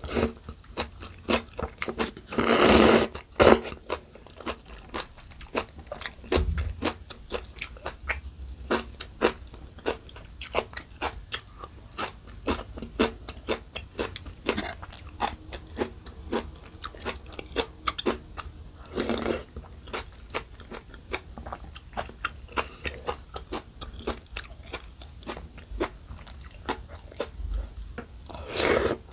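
Close-miked eating of cold spicy bibim noodles with bean sprouts and young radish kimchi: crisp, crunchy chewing with many small clicks throughout. Three longer slurps stand out: one about two and a half seconds in, one past the middle, and one near the end.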